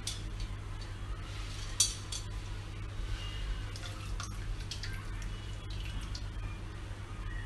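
Metal hand-press lemon squeezer clicking and clinking as a lemon is pressed, with juice dripping into a pot of soup; one sharp click about two seconds in is the loudest. A steady low hum runs underneath.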